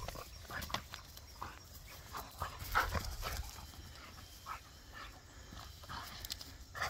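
A Vizsla dog making short, irregular vocal sounds while pulling on a tug toy in play, the loudest about three seconds in.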